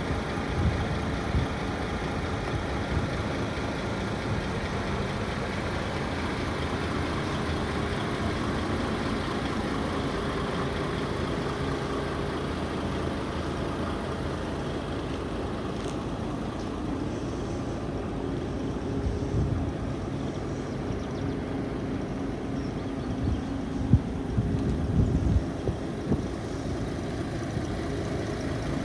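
DAF XF 460 Euro 6 tractor unit's straight-six diesel engine idling steadily, with a few brief low thumps near the end.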